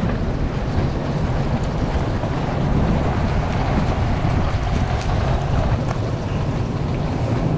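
Steady wind noise on the microphone over the wash of ocean surf.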